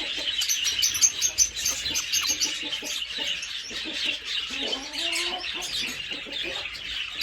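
A flock of small cage birds chirping and chattering, many short high calls overlapping without a break.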